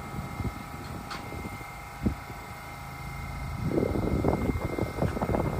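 An R68A subway train standing at the platform with a steady hum of several high tones over a low rumble, and a single click about two seconds in. From about three and a half seconds in, gusty wind buffets the microphone and grows louder.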